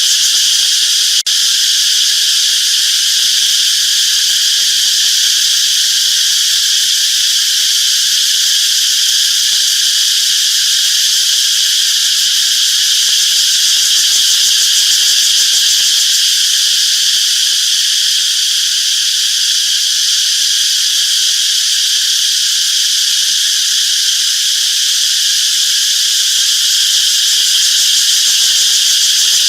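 Cicadas singing in a steady, loud, unbroken buzzing drone, with a brief click and drop about a second in.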